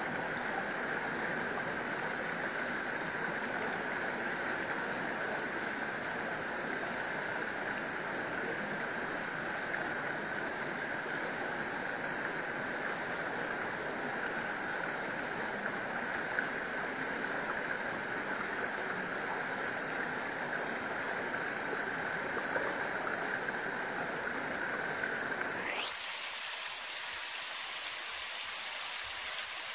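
A shallow mountain river running over granite slabs and between boulders, with small cascades; a steady rushing and babbling of water. Near the end the low part of the sound falls away, leaving a thinner, higher hiss.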